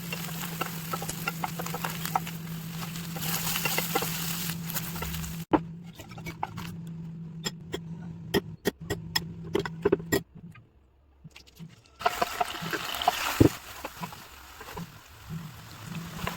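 Kitchen cooking sounds: many sharp clicks and clinks, like utensils against cookware, over a steady low hum and a faint hiss. The sound cuts off abruptly a few times.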